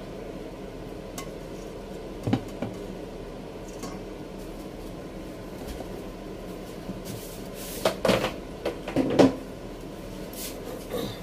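Hard knocks and clatters of kitchenware against a countertop over a steady low room hum: two knocks a couple of seconds in, then a quick cluster of clatters about eight to nine seconds in.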